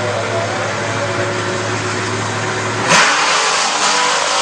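Drag-racing Chevy S-10 Blazer engine running steadily at the starting line, then launching hard about three seconds in with a sudden loud burst of revs as the truck pulls away on a wheelie.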